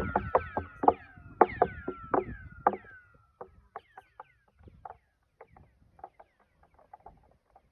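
Rapid clicks and knocks echoing out of a deep hole, each trailed by a short falling whistle like a laser zap. They come thick and loud for the first three seconds, then thin out to scattered faint clicks.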